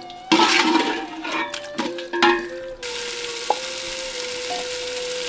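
Mutton and ground masala sizzling in a pot while a ladle stirs and scrapes through it in uneven strokes. A few seconds in, this gives way to a steady sizzle.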